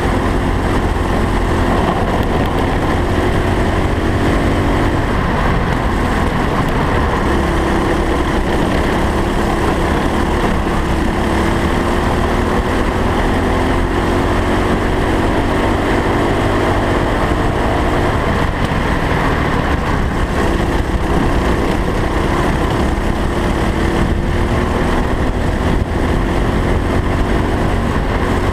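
Racing kart engine running under way on track. Its note climbs slowly and drops back several times as the kart speeds up and slows, over a heavy steady low rumble.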